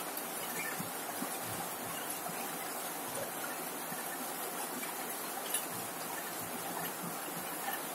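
Rain falling steadily on a corrugated zinc roof: a dense, even hiss of drops with scattered sharper ticks from single drops striking the metal.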